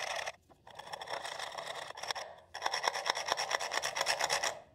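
Homemade carbide scraper scraping back crushed azurite stone inlay set in CA glue on wood: a gritty rasping in three strokes with short breaks between, the last stroke a rapid rattling scrape.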